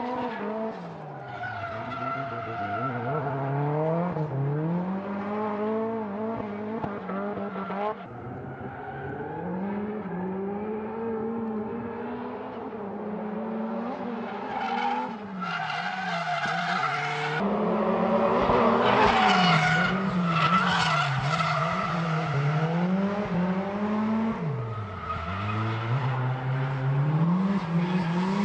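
Nissan Silvia S15 drifting: the engine revs rise and fall over and over through the slides while the tyres screech, loudest about two-thirds of the way in. The sound jumps abruptly twice, about 8 and 17 seconds in.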